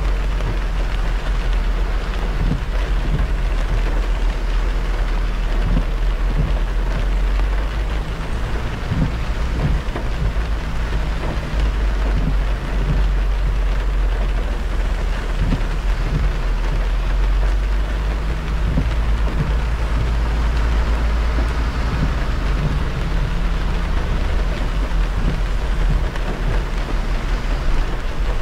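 A car driving through rain on an expressway: a steady hiss of rain and wet tyres over a deep, constant road rumble, with scattered low thumps.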